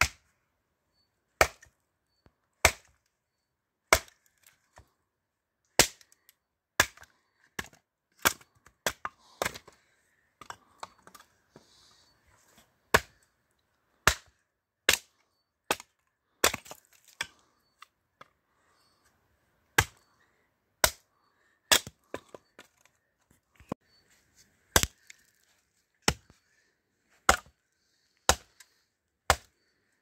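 Axe splitting firewood on a log chopping block: sharp wooden chops about a second apart, with two pauses of a few seconds in the middle.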